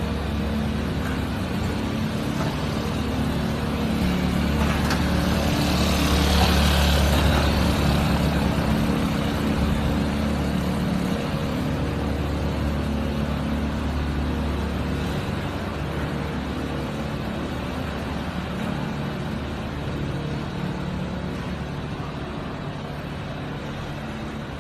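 Giant fan propelling a small pallet-built buggy: its motor and fan blades running steadily. The sound swells to its loudest about seven seconds in, then gradually fades.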